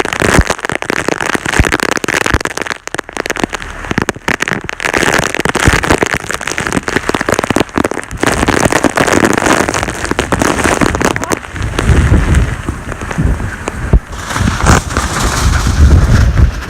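Heavy rain with a dense crackle of drops hitting close to the microphone. From about twelve seconds in, wind buffets the microphone with a low rumble.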